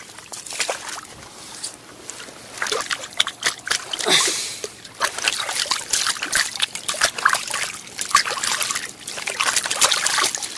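A hooked fish, a sabrefish, splashing and thrashing at the water surface as it is played in and landed, with irregular splashes and water trickling.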